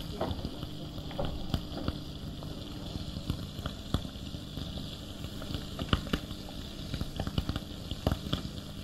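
Lamb sweetbreads and lamb chops frying in oil and butter in a frying pan: the fat sizzles and spits with irregular pops and crackles, over a faint steady hum.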